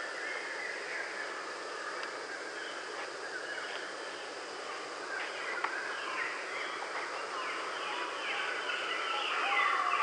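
Several songbirds calling and singing over a steady outdoor hiss, the chirps and short slurred notes growing busier toward the end.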